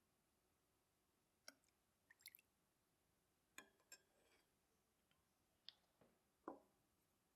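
Faint kitchen handling sounds: a few light clicks and taps spaced out over several seconds, the last one, near the end, the loudest.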